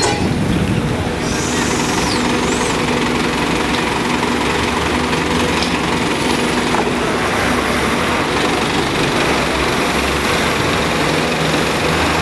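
Fishing boat's machinery running steadily, a constant loud drone with a steady low hum.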